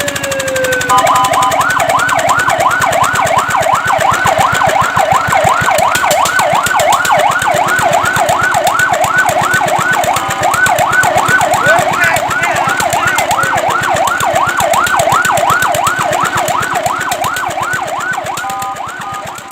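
Fire truck siren in fast yelp, sweeping up and down about three times a second. A brief steady tone sounds about a second in and again near the end, and the siren eases off slightly over the last few seconds.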